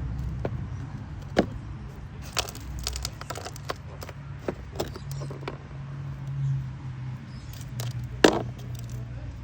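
Scattered clicks and knocks of stones being handled and tapped against each other as they are worked apart, with a sharp knock near the end.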